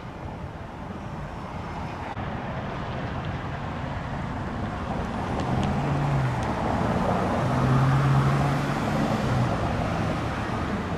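Road traffic noise: tyre and engine rumble that builds to a peak about eight seconds in, with a low engine hum near the loudest part, then eases slightly.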